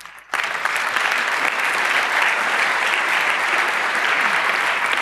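A large audience applauding. It starts suddenly about a third of a second in and then goes on steadily.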